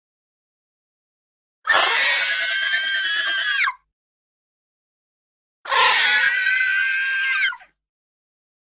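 Small phoenix creature sound effect: two high-pitched cries, each about two seconds long and ending in a quick bend in pitch, separated by silence.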